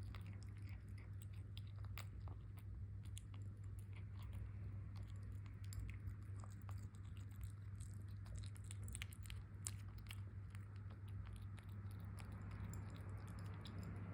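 Scottish Fold kitten eating, chewing and crunching its food in faint, irregular small clicks, over a steady low hum.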